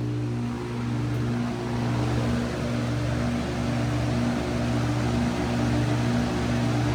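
Heat pump running in cool mode, compressor and fan going: a steady low hum with a wavering tone above it and a whoosh of air. The refrigerant line is decently cold, so the unit is cooling as it should.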